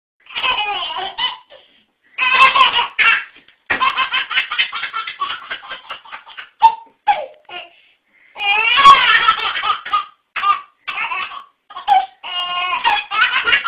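A baby belly-laughing in repeated fits of loud, high-pitched giggles, with short breaks between bursts.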